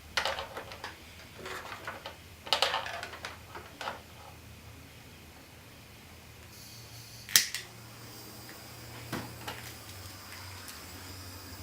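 Small clicks and rattles of tools and wires being handled, then a butane soldering torch: gas starts hissing, a sharp igniter click lights it about halfway through, and the flame burns with a steady hiss and low rumble.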